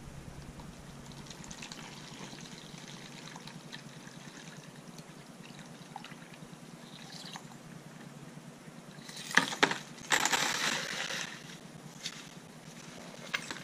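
Murky, foamy water poured from a rock tumbler's rubber drum into a bowl, trickling and splashing. It gushes louder for a couple of seconds about two-thirds of the way through.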